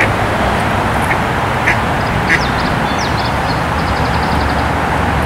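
Female mallard giving a few short quacks in the first half, over a steady background hiss.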